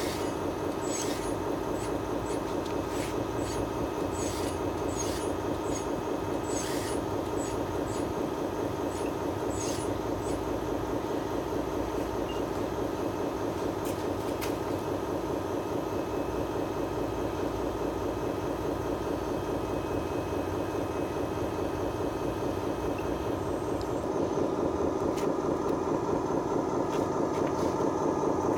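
Scale RC excavator's track drive motors and track links running as it crawls along a trailer deck: a steady whirring, fast rattling clatter, with a few light clicks in the first part and getting louder near the end.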